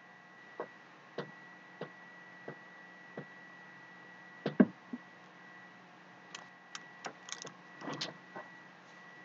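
Slow footsteps on a hard floor, about one every two-thirds of a second, then a heavier thump about four and a half seconds in, followed by a cluster of small clicks and rustles near the end, over a faint steady high hum.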